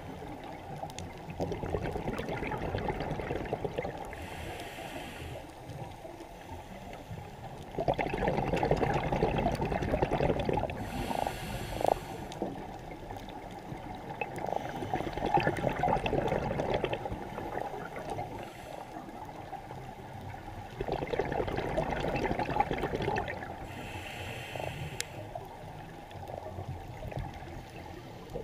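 Scuba regulator breathing heard underwater: a few breath cycles, with short hissing inhalations and longer stretches of rushing, bubbling exhaust bubbles.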